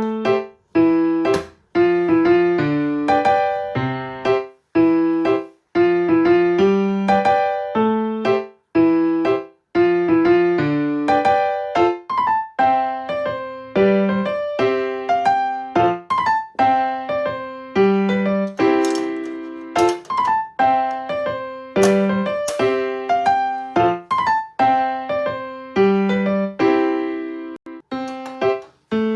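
Background music: a piano tune with clearly struck notes decaying one after another in a steady, regular rhythm.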